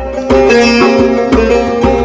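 Background music with a sitar-like plucked string melody over a steady beat.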